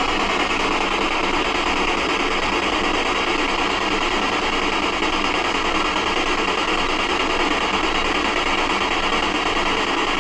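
Steady hiss of radio static from a spirit box sweeping through radio stations while the investigators listen for voices in it.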